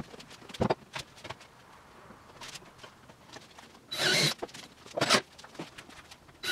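Wood and tools being handled while a plywood cabinet is assembled: scattered light knocks and clicks, with a short scraping rasp about four seconds in and a shorter one about a second later.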